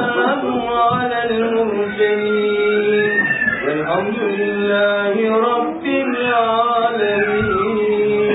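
Men chanting Sufi dhikr together, holding a steady low note while a voice sings a winding melody above it.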